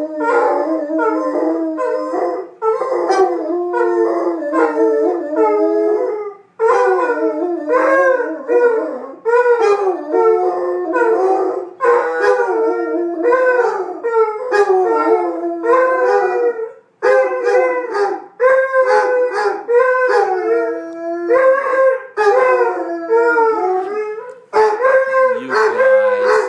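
Two basset hounds howling together, their long wavering bays overlapping, with brief breaks about six and seventeen seconds in.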